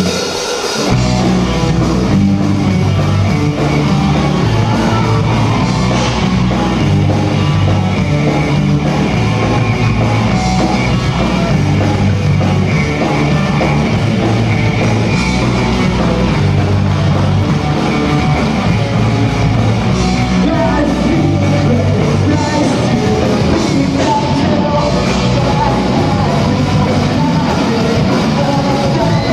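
Loud rock music from a live band, electric guitars, bass and drums with singing, kicking in at once and driving on with a steady beat.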